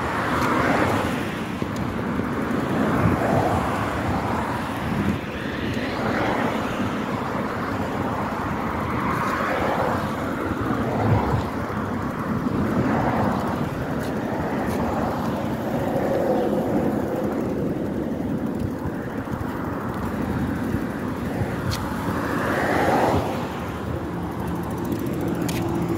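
Steady rush of wind and road noise on a phone microphone carried on a moving bicycle, swelling and easing every few seconds.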